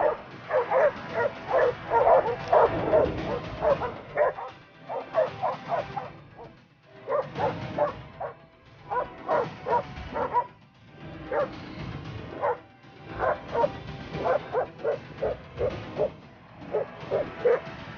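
Several hunting dogs barking and yelping in quick, overlapping bursts, with a few short pauses.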